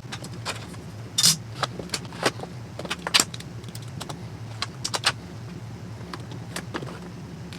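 Scattered light metallic clicks and clinks, irregular and a second or so apart, with a small cluster around the middle, from screws being driven by hand with a screwdriver into a metal drawer slide rail. A faint steady low hum lies underneath.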